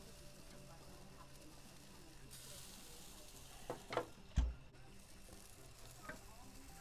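Brats sizzling faintly on the grate of a ceramic kamado grill. Partway through come a couple of knocks and then one heavy, low thud as the grill's ceramic dome lid is handled, with a small click a little later.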